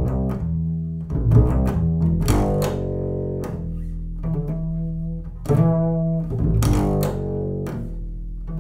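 Upright double bass played pizzicato in free time: a slow line of plucked notes outlining minor chords of a 12-bar blues. Each note is left to ring over a sustained low note, with a new pluck every second or so.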